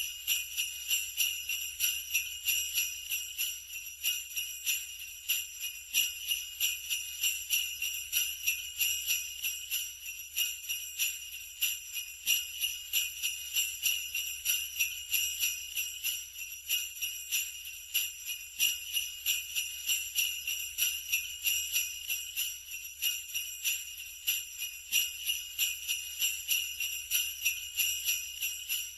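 Sleigh bells shaken in a steady rhythm, about two shakes a second, a continuous bright jingle.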